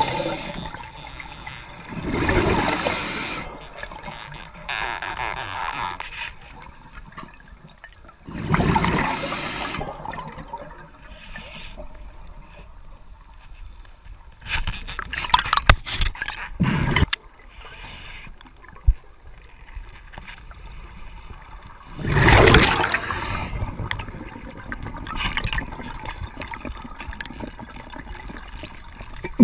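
Scuba diver's regulator breathing underwater: bursts of bubbling gurgle from each exhalation, several seconds apart, with a few sharp clicks and knocks in the middle.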